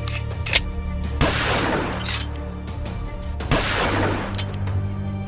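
Several bursts of gunfire sounds, each sharp at the start and trailing off over about a second, over background music with a steady low bass line.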